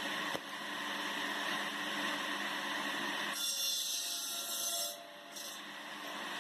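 Homemade wood-processing machine running and grinding into wood, a dense rasping mechanical noise that changes abruptly a couple of times.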